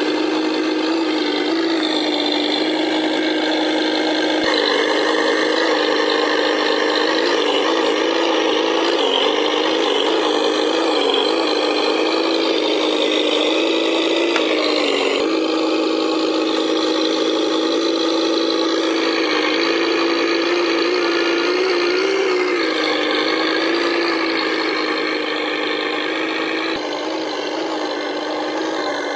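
Simulated V8 engine sound from the RC Humvee truck's electronic sound unit, played through its small speaker: a steady low-revving drone with small rises in pitch as the throttle is worked. It changes abruptly at a couple of edits.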